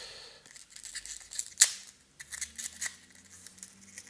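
A wrapped camera shoulder strap being unwrapped by hand: rustling and small clicks of the packaging, with one sharp click about a second and a half in.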